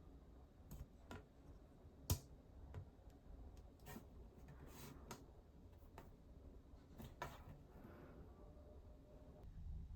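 Faint scattered clicks and taps of small objects being handled, the sharpest about two seconds in, against near silence.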